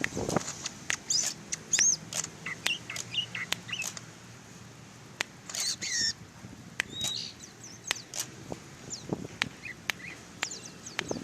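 Caged cucak ijo (greater green leafbird) giving short, high, scattered chirps, mixed with sharp clicks.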